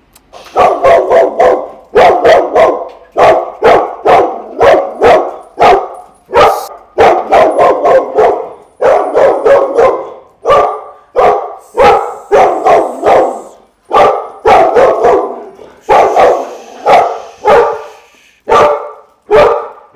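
Two dogs barking hard and without a break, a loud sharp bark about twice a second, at a stranger coming in: the agitated, reactive barking of dogs that bark at any noise.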